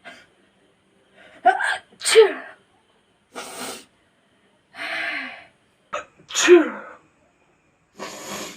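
A woman sneezing twice, about two seconds and six and a half seconds in. Each sneeze is a loud cry that falls in pitch, led by a sharp intake, with breathy sniffs and breaths between. The sneezes are brought on by tickling the inside of the nose with a rolled-up strip of paper.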